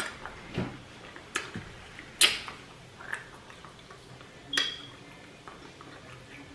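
A few sharp clinks of cutlery against a dish, spaced a second or so apart; the loudest come about two seconds in and about four and a half seconds in, the second with a short ring.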